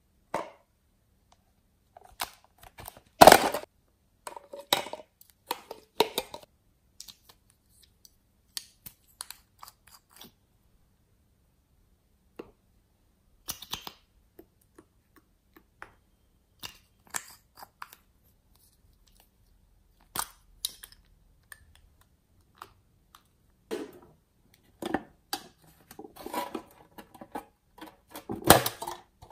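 Hands handling small plastic cosmetic items and containers over a tray of slime: scattered clicks, taps and rustles with pauses between them, the loudest about three seconds in and busier near the end.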